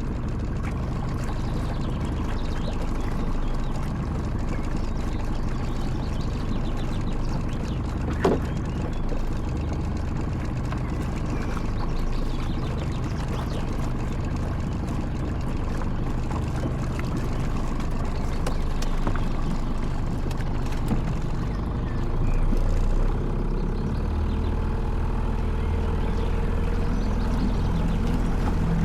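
Motorboat engine running steadily under way. There is a single sharp knock about eight seconds in, and the engine's low rumble grows louder about two-thirds of the way through.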